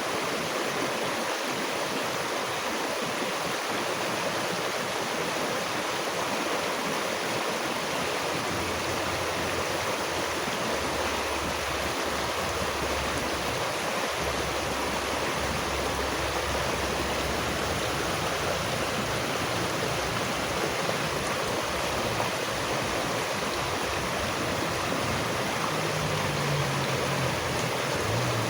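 Running water, as of a stream, flowing with a steady, even rush.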